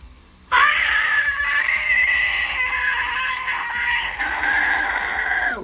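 A deathcore whistle scream, also called a tea-kettle scream: a high-pitched fry scream held on an "ah" vowel. It starts about half a second in and is held for about five seconds, with a short break about four seconds in.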